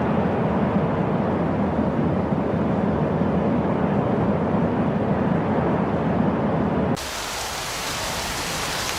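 Steady heavy noise of rushing floodwater and rain, deep and dense; about seven seconds in it cuts abruptly to a quieter, hissier downpour.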